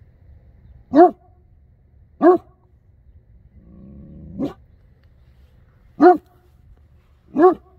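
Great Dane barking: five deep single barks spaced a second or two apart, the third led into by a low rumbling sound.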